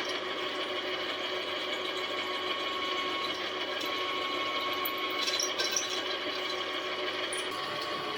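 Electric drill running steadily under load, drilling holes through the metal top of a tool cabinet.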